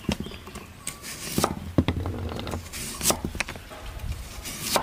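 Knife cutting taro on a chopping board: a few sharp, irregularly spaced chops.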